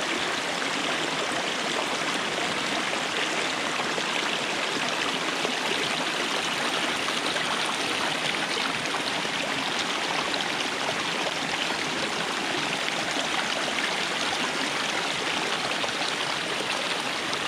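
Small creek running over rocks, a steady rush of water.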